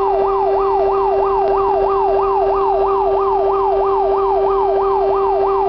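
Star fire engine's electronic siren sounding a fast yelp, about three pitch sweeps a second, steady and unbroken, over a steady lower tone.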